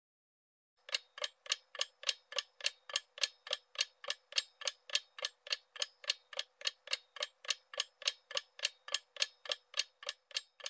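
Clock-ticking sound effect counting down a quiz timer: evenly spaced sharp ticks, about three a second, that start just under a second in and cut off suddenly at the end.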